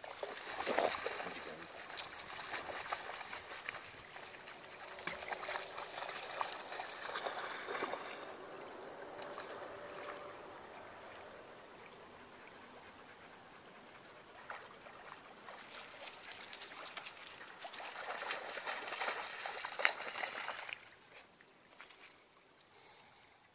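Faint splashing and trickling of water as a dog wades and paddles through shallow lake water, in two louder stretches that die away near the end.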